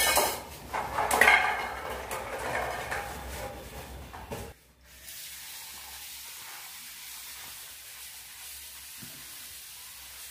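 Pots and a steel bowl knocking and clinking for the first few seconds, then, from about five seconds in, a kitchen tap running steadily into the bowl as shelled broad beans are rinsed.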